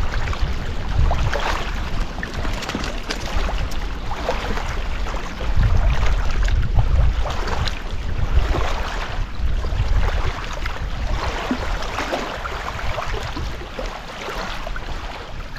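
Small wind-driven waves lapping and washing onto a muddy gravel lakeshore in repeated small splashes, with wind rumbling on the microphone.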